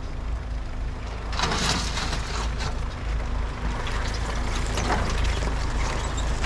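Off-road 4x4 engine running with a steady low rumble, joined from about a second and a half in by bursts of rough, hissing noise.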